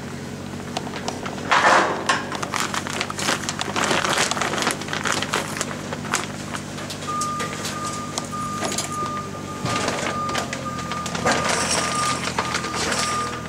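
A motor runs steadily throughout, with clattering and rustling of work over it. About halfway through, a high, steady beeping alarm starts.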